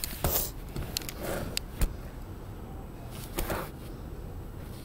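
Phone microphone rubbing and bumping against clothing, making irregular scuffs and rustles, with one sharp click about two seconds in.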